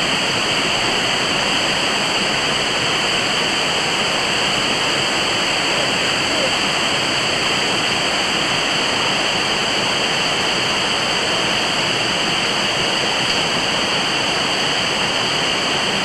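Waterfall pouring onto rocks: a steady, unbroken rush of falling water.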